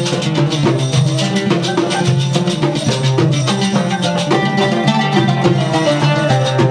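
Instrumental background music with pitched instruments over busy percussion.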